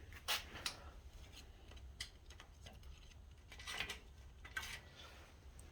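A few faint, scattered clicks and light scrapes of small objects being handled, with a low hum underneath.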